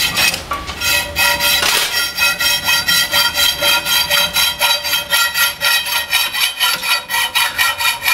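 A hand tool worked back and forth on an iron rod in even strokes, about three a second, while the steel rings with steady high tones.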